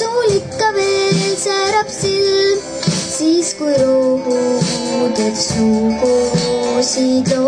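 A girl singing a song over an instrumental backing track with a steady beat, her voice holding and sliding between long notes.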